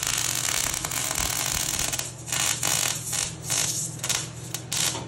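Wire-feed welder's arc crackling steadily as steel bumper tubing is welded, then breaking into a string of about six short spurts from about two seconds in as the welding is done in short stitches.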